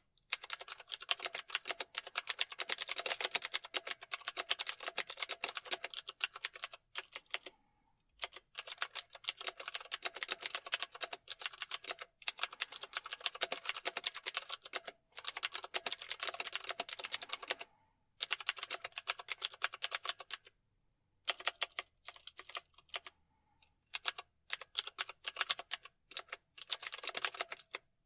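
Typing on a computer keyboard: fast runs of key clicks, broken every few seconds by short pauses of up to about a second.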